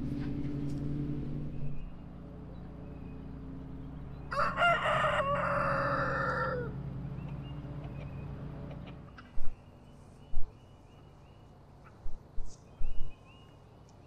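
A rooster crows once, a long call of about two and a half seconds that drops in pitch at its end, over the steady low running of a tractor engine. The engine sound stops about nine seconds in, leaving a few short, sharp loud sounds and faint bird chirps.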